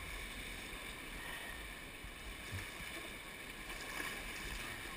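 Steady rushing noise of river water around a paddled raft, with a couple of faint brief knocks.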